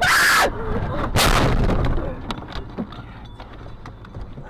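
Car crash: two loud impacts about a second apart, then fading clatter with scattered knocks.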